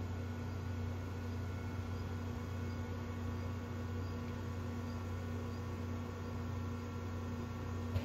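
A steady low hum with a few constant tones in it, and faint high chirps repeating about every half second; the hum cuts off with a click at the very end.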